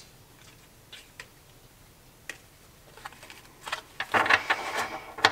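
A thin, flexible-cardstock Infernal Tarot deck being shuffled. A few light clicks as the cards are handled, then near the end a riffle shuffle: a quick crackling run of card edges flicking together.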